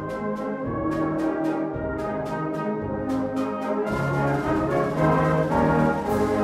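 Brass band music playing, sustained chords from horns, trombones and trumpets, with short percussion strokes keeping time through the first few seconds.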